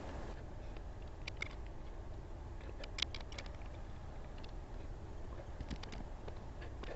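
Scattered light metallic clicks and ticks as a brass pipe fitting on the oil pressure switch tee is threaded on and snugged down by hand, over a steady low rumble.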